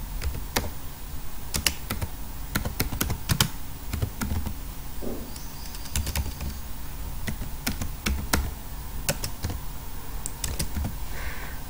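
Typing on a computer keyboard: irregular key clicks in short runs as a couple of words are typed.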